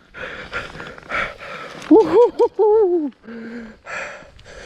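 A man breathing hard in breathy gusts, with a few wordless exclamations and a short hum in the middle, the sounds of effort while fighting a heavy bass on the line.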